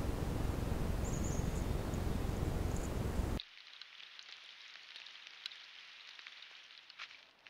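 A steady loud hiss, with a couple of faint high chirps, that cuts off abruptly about three and a half seconds in. After it, faint scattered rustling and crackling of raccoons walking over the frozen brush and sticks of a beaver dam.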